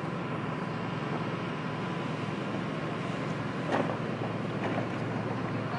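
Fire engine running steadily with its pump working: a low drone under a broad hiss. One brief, sharper sound stands out just past the middle.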